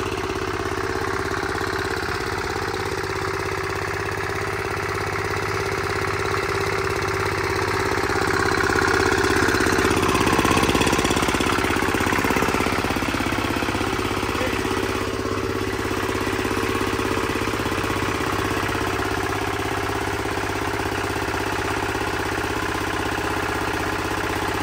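Mini tiller's small single-cylinder engine running steadily at idle, a little louder for a few seconds around the middle.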